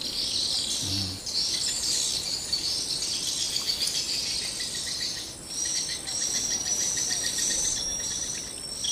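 A high-pitched chorus of calling insects, going on without a break; about halfway through a thin steady whine joins it, with a fast, even pulsing underneath.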